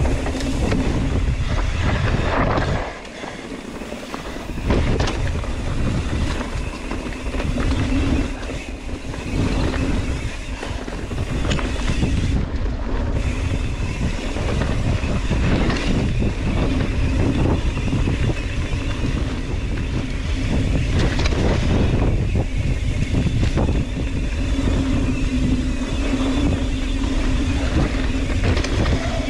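Wind rushing over the camera microphone with the rattle, knocks and tyre noise of a full-suspension mountain bike descending a rough, rocky trail; the wind eases briefly about three seconds in.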